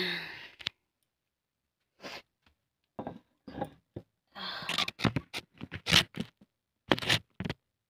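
A person coughing over and over in short, separate bursts, in uneven clusters with brief silences between them: deliberate, performed coughing.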